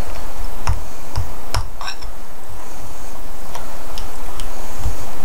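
Utensil stirring half-melted chocolate chips in a bowl, giving irregular light clicks against the bowl's side, one of them a short ringing clink.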